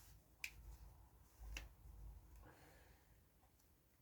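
Two faint, sharp clicks about a second apart as the iPhone 5's parts are handled and fitted together while the phone is being closed up, with light handling noise in between.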